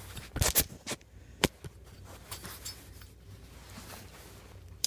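Handling noise: a quick cluster of sharp clicks about half a second in, a single click around a second and a half, then a few fainter ticks.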